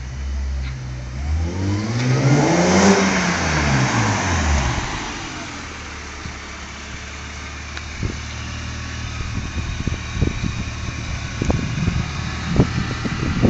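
BMW E46 330ci's 3.0-litre straight-six through a Schmiedmann and Eisenmann aftermarket exhaust, blipped once from idle. The pitch rises to a peak about three seconds in and falls back to a steady idle by about five seconds. A few light knocks come near the end.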